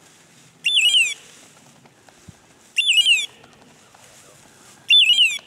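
An electronic beeper collar on a Brittany bird dog, sounding the same short, shrill, descending call three times about two seconds apart.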